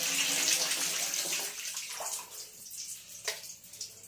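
Water running, fading out about a second and a half in, followed by a few faint clicks.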